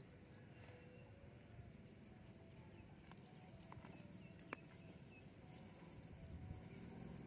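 Faint sounds of a grazing cow: a few sharp clicks of grass being torn off, about halfway through, over quiet open-air background with a steady faint high hiss and scattered small ticks.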